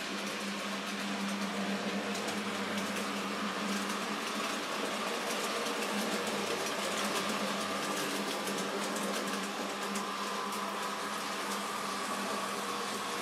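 N-gauge model train running on the layout track: a steady motor hum with fine, rapid ticking from the wheels on the rails.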